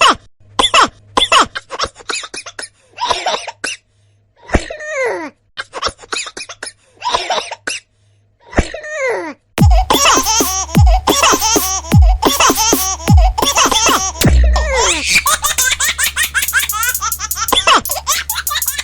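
A baby laughing in short bursts with pauses between them. About halfway through, backing music with a low thumping beat, a little under one beat a second, comes in under continued laughter.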